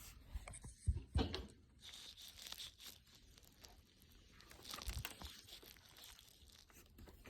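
Plastic snap clips on a Dell Inspiron 24 all-in-one's rear cover being pried loose, with scraping and crackling as the panel is levered. There are two sharp clicks about a second in and another near five seconds.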